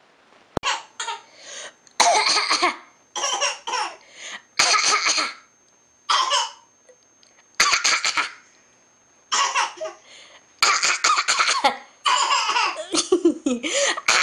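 A baby's fake coughs mixed with laughter: a string of about a dozen short, breathy bursts with brief pauses between them.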